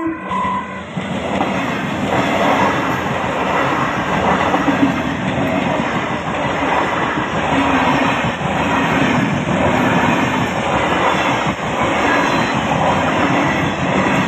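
Electric EMU local train passing at speed close by, its wheels and coaches making a steady loud rumble and clatter on the track.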